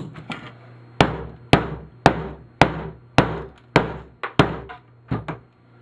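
Hammer blows on a metal power strip as its copper and brass pieces are knocked out: seven sharp, evenly spaced strikes at about two a second, each ringing briefly, then a few lighter taps.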